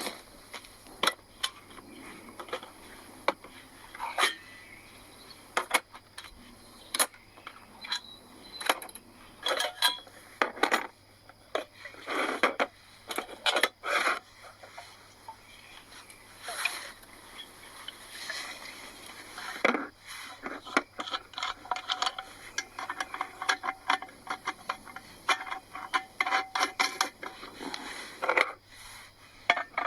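Metal camp cookware and utensils clinking, knocking and scraping in irregular handling sounds as coffee-making kit is got out and set up, with a denser run of small clicks in the later part.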